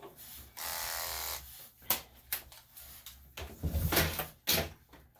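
Electric dog-grooming clippers buzzing briefly, switched on for under a second, followed by scattered clicks and knocks of handling.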